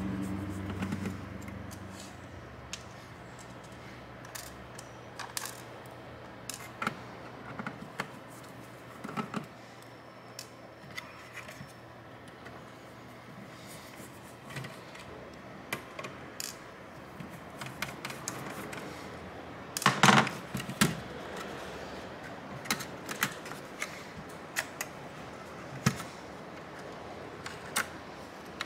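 Scattered small clicks and metal clinks of hands, a precision screwdriver and small screws working on a mini PC's metal chassis and internal bracket, with a louder clatter of several clicks about twenty seconds in.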